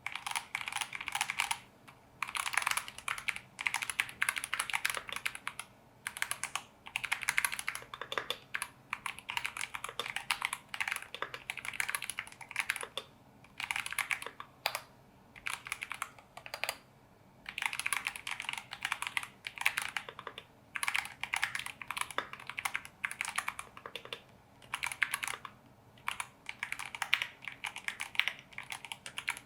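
Mechanical keyboard with Gateron G Pro Silver linear switches being typed on in quick runs of keystrokes, a second or two long, broken by short pauses.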